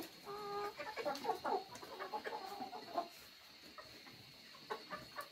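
Several domestic hens clucking and calling as they feed, with one short held call just after the start. The calls come thick in the first few seconds and thin out toward the end.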